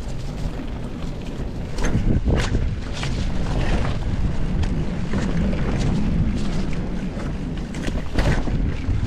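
Mountain bike being ridden down a dirt trail: wind buffeting the camera microphone in a steady low rumble, broken by several sharp knocks and rattles from the bike as it hits bumps.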